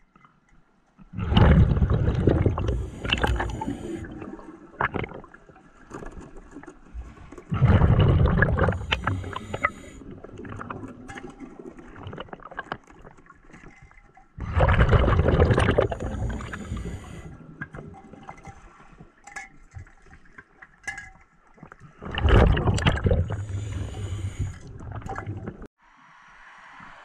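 A scuba diver breathing through a regulator underwater: four loud rushes of exhaled bubbles, roughly every seven seconds, each lasting three to four seconds, with quieter hissing and small clicks between them.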